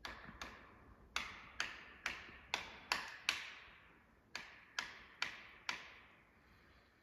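Sharp, ringing blows driving a felling wedge into the cut of an oak tree, heard from a distance in the woods. Eight strikes come about two a second, then after a short pause four more.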